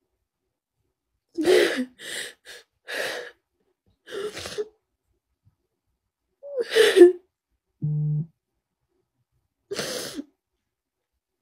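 A woman sobbing in short, gasping breaths, about six or seven separate bursts with pauses between them. A short steady electronic beep sounds once, about two-thirds of the way through.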